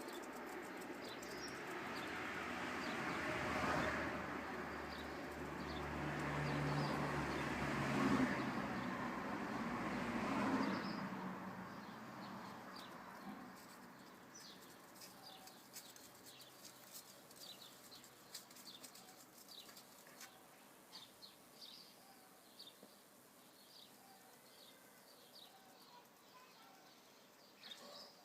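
A rustling noise swells and fades over the first eleven seconds or so. Then comes a run of faint, quick bird chirps, repeating irregularly.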